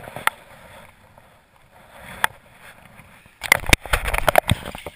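Handling noise close to the microphone: a couple of sharp clicks, then about three and a half seconds in a dense run of knocks, rubbing and thumps as a hand works against the camera and the zip-line harness gear.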